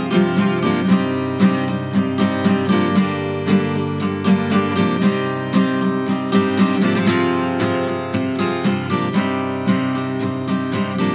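Solo acoustic guitar strummed in a steady rhythm of chords, with no singing: the instrumental opening of a song.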